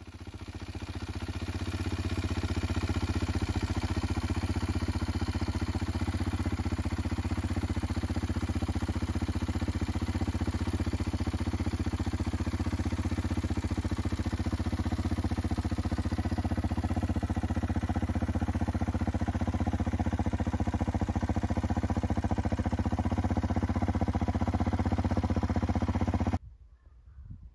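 Kawasaki KLX230's single-cylinder four-stroke engine running at a steady, unchanging speed. It fades in over the first two seconds and cuts off suddenly about a second before the end.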